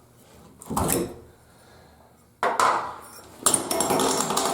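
A tub-and-shower valve's trim sleeve being worked loose and pulled off, with clattering and scraping of metal and plastic parts: a short scrape about a second in, then two longer rattling scrapes in the second half.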